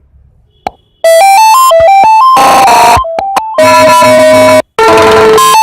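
A phone playing loud ringtone previews in an anti-theft alarm app: a synthesized melody of quick stepping notes starts about a second in, breaks off and switches to different tones twice as sounds are tried. A couple of light taps come before it.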